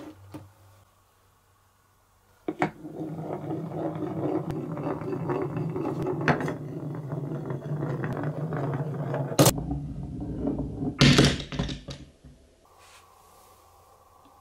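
A glass marble rolling down a wooden HABA wave-slope marble run, a steady rumble with small clicks starting about two and a half seconds in. About nine and a half seconds in it gives way to a few loud, sharp knocks as the marble leaves the track and lands.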